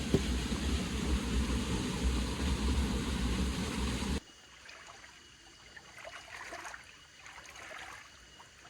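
Steady rushing noise of flowing river water, with a heavy low rumble, that cuts off abruptly about four seconds in. After the cut only faint small rustles and taps remain.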